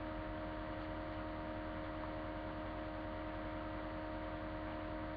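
Steady electrical hum with hiss, the noise floor of a webcam's built-in microphone; a few fixed tones sit over an even hiss, with no other sound.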